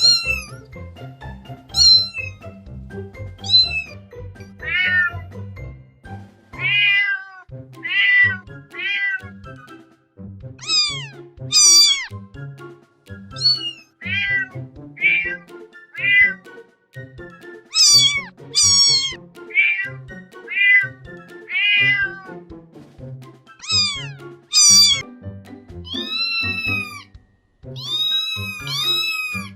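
A long series of cat meows, roughly one a second, most of them falling in pitch, over background music with a steady low beat.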